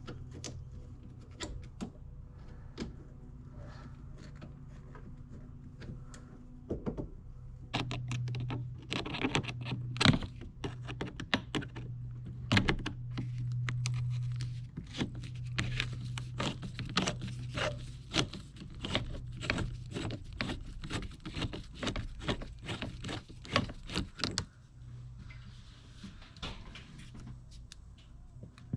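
Heater hose clamps being unscrewed with a screwdriver: a long run of irregular clicks and taps, busiest from about a quarter of the way in until near the end, over a steady low hum.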